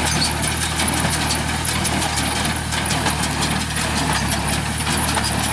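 Tractor-drawn straw baler at work: a steady engine hum under a continuous fast mechanical clatter from the baler's pickup and plunger.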